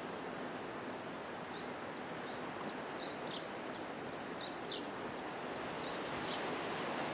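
A small bird chirping, a run of short high notes about two a second, with one longer falling note a little past the middle. Underneath runs a steady rustle of wind in the trees.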